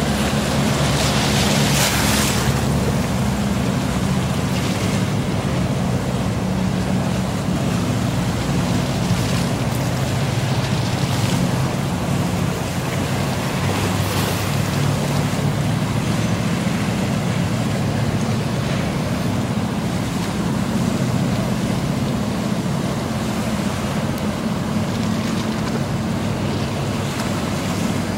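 Police patrol boats running at speed: a steady low engine drone with the hiss and splash of their bow wake on the choppy water, and a brief rush of noise about a second in.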